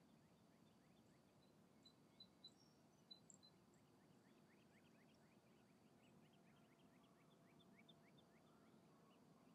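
Near silence, with faint distant bird calls: a few short high notes, then from about three seconds in a steady run of quick rising chirps, about two a second.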